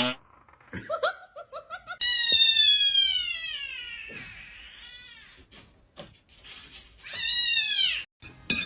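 A cat meowing: a few short chirping calls, then one long drawn-out meow falling in pitch, and another loud meow near the end.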